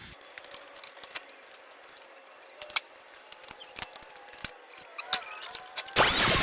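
Scattered light clicks and taps of metal and tools being handled, then a loud, steady rushing noise starts suddenly near the end.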